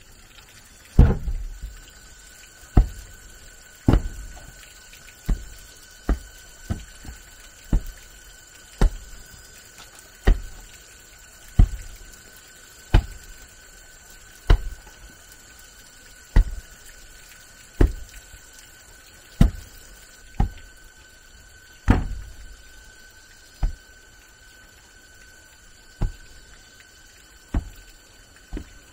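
Repeated heavy thuds, about one every second and a half, over a faint steady high tone.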